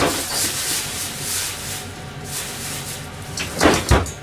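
Kitchen handling noises: rubbing and scraping sounds, then two knocks close together near the end.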